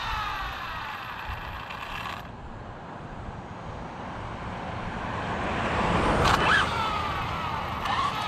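Twin-motor Arrma Felony RC car driving slowly on tarmac, its motors and drivetrain whining. The whine falls in pitch, then rises and falls again about six seconds in. It comes from a badly set gear mesh.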